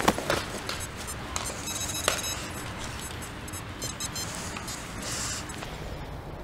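A metal sand scoop digs into loose playground sand, scraping, with a sharp clink at the start and another about two seconds in. Twice, the XP Deus metal detector gives short runs of repeated high-pitched beeps over a target.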